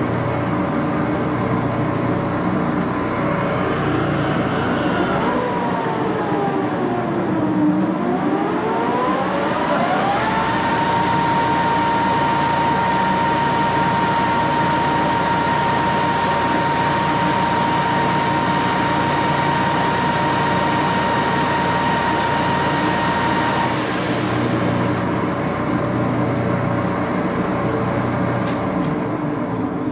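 Axelson geared-head lathe running, its headstock gears giving a steady mechanical whine. About five seconds in the pitch sinks, then climbs to a higher steady whine as the spindle changes speed; the whine holds for about thirteen seconds and stops about 24 seconds in, while the machine keeps running.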